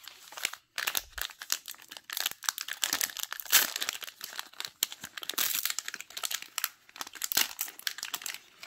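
Plastic wrapper of a Topps baseball card fat pack being torn open and crinkled by hand, in a dense run of irregular crackles.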